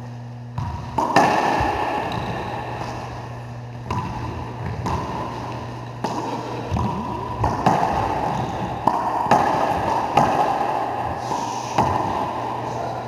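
Racquetball play in an enclosed court: sharp smacks of the ball off racquets, walls and floor, about one every second or so, each ringing with echo, over a steady low hum.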